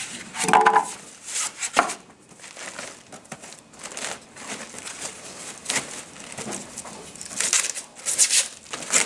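Irregular crinkling and rustling of something being handled, in scattered bursts that are loudest in the second half. There is a brief bit of voice about half a second in.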